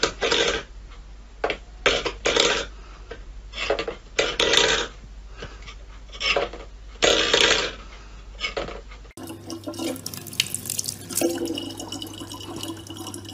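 A steel food bowl scraped and knocked on a wooden floor by a cat's paw in repeated short bursts. About nine seconds in it cuts to water running steadily from a tap into a plastic bottle.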